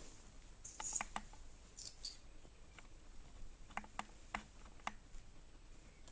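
Faint scattered taps and clicks with two brief scratchy scuffles about one and two seconds in: a Persian kitten's paws and claws on the floor as it chases a laser pointer dot.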